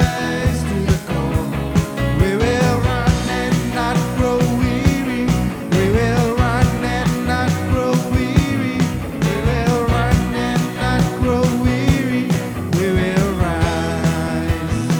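Worship band music with drums keeping a steady beat under a gliding melody line.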